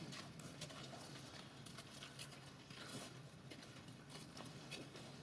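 Quiet snowy outdoor ambience: faint, irregular soft ticks and crunches over a low steady hum.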